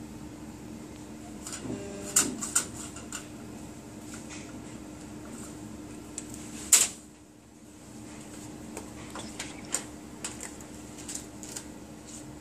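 Scattered light clicks and taps of plastic petri dishes and lids being handled, over the steady hum of a biological safety cabinet's fan, with one sharper click about seven seconds in.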